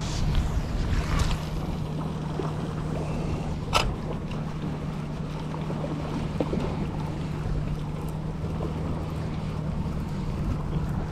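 Wind and water noise aboard a small boat, over a steady low hum, with one sharp knock about four seconds in.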